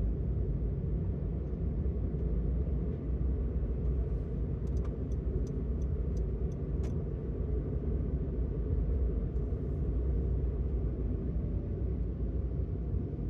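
Steady low rumble of passing car traffic. A quick run of about eight sharp clicks comes in the middle.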